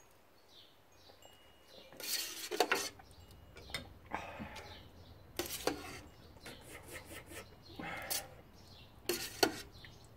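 Spoons and a ladle clinking against ceramic bowls and a stainless steel pot as soup is served and eaten, several separate clinks. Birds chirp faintly in the background.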